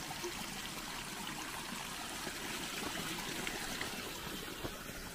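Running water: a steady flow of a stream or water channel.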